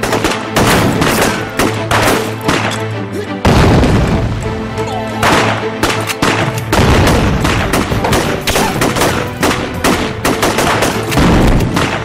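Dense rifle and machine-gun fire in a film battle, shot after shot with bullet impacts, over a dramatic music score. A louder, deeper bang lands about three and a half seconds in.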